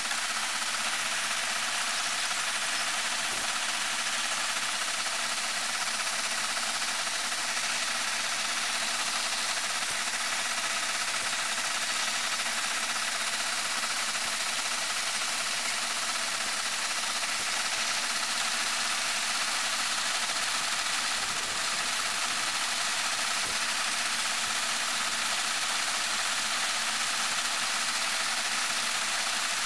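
Metal lathe running steadily while a parting tool cuts grooves in a solid PVC rod, an even mechanical hiss and hum.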